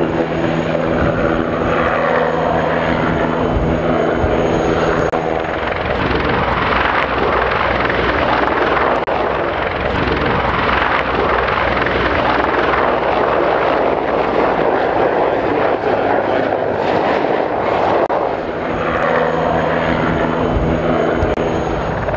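Military helicopters flying low, a Eurocopter Tiger and a Sikorsky CH-53, rotors and turbines running. A steady layered hum gives way about six seconds in to a broad rushing roar, and the hum returns near the end.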